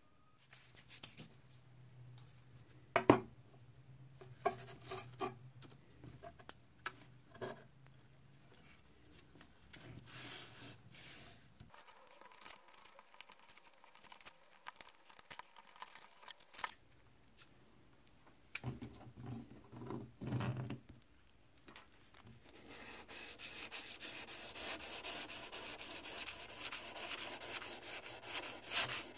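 Scattered handling knocks, with one sharp knock about three seconds in, then, about two-thirds of the way through, fast steady back-and-forth sanding of a steel draw knife blade with 600-grit sandpaper wrapped around a stick, a continuous scratchy rasp.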